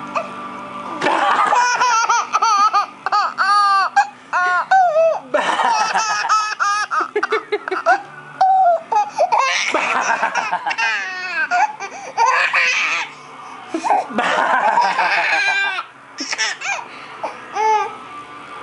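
A baby laughing hard in repeated bursts of high-pitched laughter, with short breaks between the bursts.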